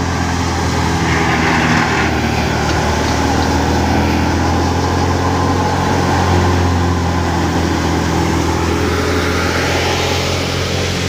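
Massey Ferguson 385 tractor's four-cylinder diesel engine running steadily, driving a belt-driven wheat thresher whose drum and blower whir along with it.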